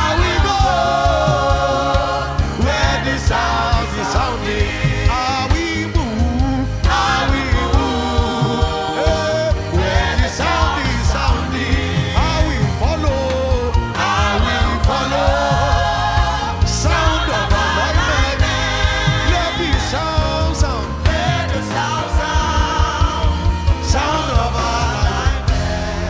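Gospel worship music: voices singing over a band with a steady drum beat.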